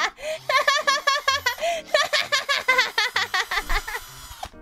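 A woman laughing in a long, fast run of high-pitched 'ha's.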